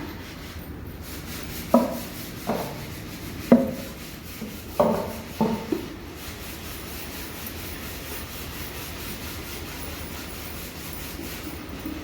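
Wood knocking on wood: about five sharp, hollow knocks in the first six seconds, over a faint steady rubbing sound.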